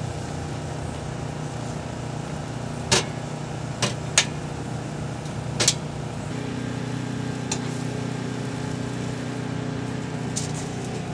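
An engine running steadily, with a low hum whose tone shifts slightly about six seconds in. A few sharp knocks or clacks sound over it around the middle.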